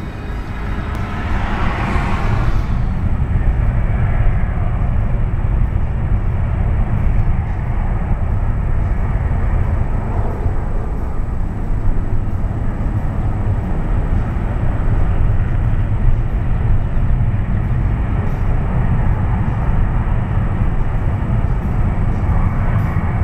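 Two F-15 fighter jets' twin engines at takeoff power: a higher whine over the first couple of seconds, then a loud, steady, deep jet rumble as they roll down the runway and climb away.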